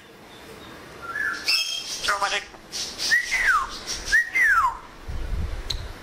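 African grey parrot whistling: a few short chirps and a brief voice-like call, then two matching whistles about a second apart, each rising briefly and then sliding down in pitch. A low rumble follows near the end.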